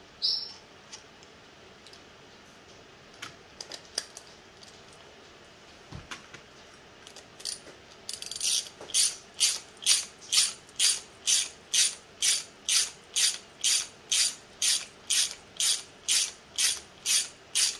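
Ratchet wrench clicking in steady back-and-forth strokes, about two a second, tightening the nut on the end of a belt roller. A few scattered clicks come first, and the steady run starts about eight seconds in.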